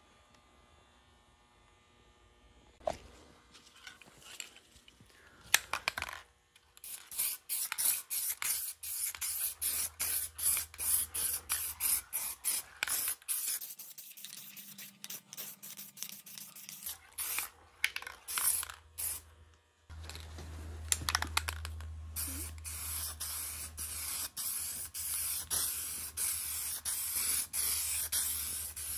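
Aerosol spray can of leather dye hissing as it is sprayed onto a leather seat, first in many short bursts and then, from about two-thirds of the way in, in longer steady passes. The first few seconds are quiet apart from a couple of clicks.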